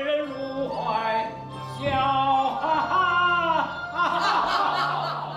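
A man singing in a Chinese opera style, with long, wavering held notes over a steady low accompaniment.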